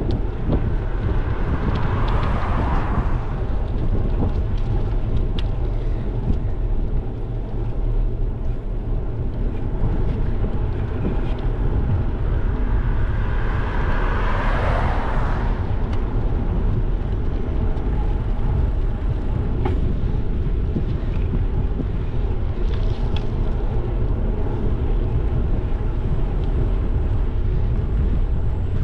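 Steady low wind rumble on a bike-mounted action camera's microphone while cycling. Two cars pass, each swelling and fading away, one about two seconds in and another around fourteen seconds in.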